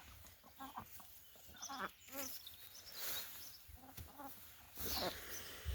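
Chickens calling in short, scattered clucks, with rustling and a low knock near the end.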